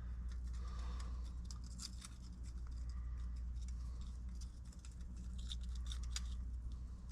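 Scattered light metallic clicks and snips of wire being cut and handled, over a steady low hum.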